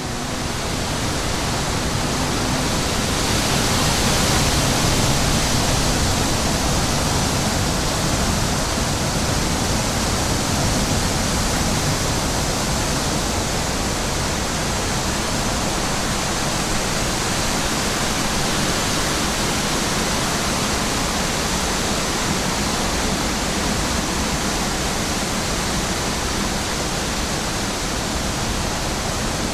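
Steady wind rushing over the microphone, swelling slightly a few seconds in.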